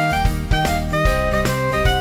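Background music: an instrumental with a melody of short, evenly paced notes over a steady beat.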